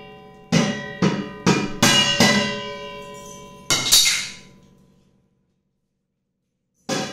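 A stainless steel pot being beaten with a wooden spoon, each strike leaving a metallic ring. A quick run of about five strikes comes first, two more follow around four seconds in, then a pause before a single strike near the end.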